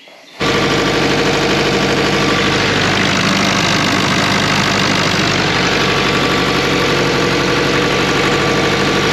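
Engine of a field irrigation pump unit running loud and steady, coming in suddenly about half a second in.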